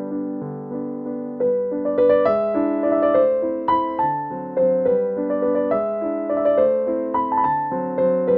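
Background piano music: a melody of held notes over chords, growing busier about a second and a half in.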